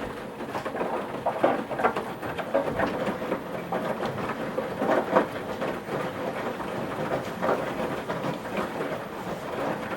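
Washing machine mid-wash: water and wet laundry sloshing in the turning drum in uneven surges, over a faint steady hum.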